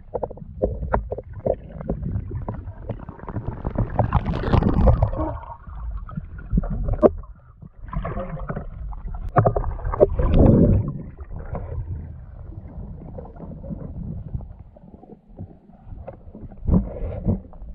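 Underwater sound through a camera housing as a spearfisher swims: a low churning rumble of water movement, with scattered clicks and knocks against the housing and two louder rushing swells, about four and ten seconds in.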